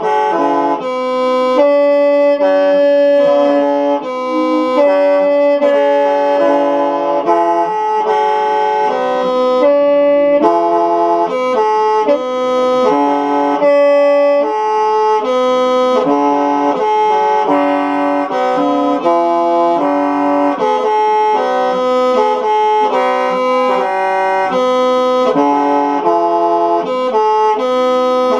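Hmong qeej, a bamboo free-reed mouth organ, being test-played: several reed notes sound together as chords that change about every half second to a second, with no pause.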